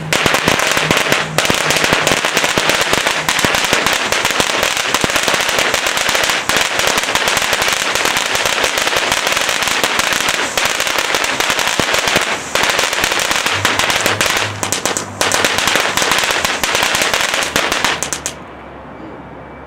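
Winda Fireworks 'Dancing with Ghost' fountain firework burning: a loud, steady spray hiss packed with rapid crackling pops from its crackling stars, cutting out near the end as the fountain burns out.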